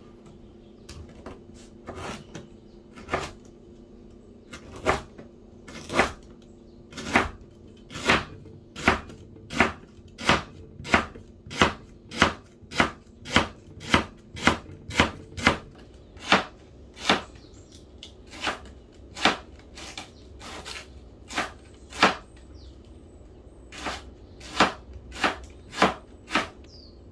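Cleaver slicing lemongrass stalks into thin rounds on a plastic cutting board: a steady series of sharp strikes against the board, a little over one a second, sparser at the start.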